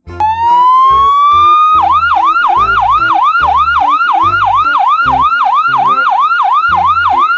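Ambulance siren: a tone winds up slowly for nearly two seconds, then switches to a fast up-and-down warble about three cycles a second.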